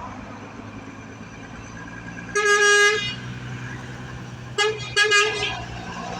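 Mercedes-Benz 1620 dump truck's diesel engine running steadily, with a loud truck horn sounding over it: one blast of about half a second, then two short toots near the end.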